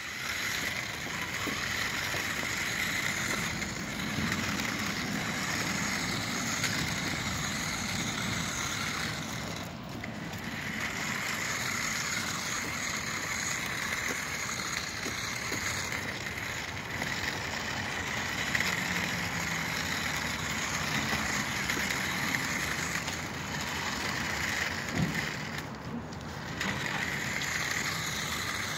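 Toy RC Ford Bronco's small electric motor and gears whirring as it drives over concrete, with its plastic tyres rolling on the grit. The whir cuts out briefly twice, about a third of the way in and again near the end.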